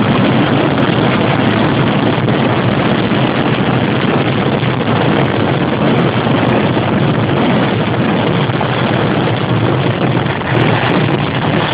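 Kerala temple fireworks barrage (vedikettu): firecrackers going off in such rapid succession that the bangs merge into one continuous, loud rumbling noise, with a brief dip near the end.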